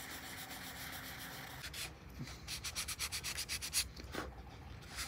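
Crumpled, softened sandpaper rubbed by hand over oil-based primer on carved wood. First a steady scratchy hiss, then from about two seconds in a run of quick, short back-and-forth strokes.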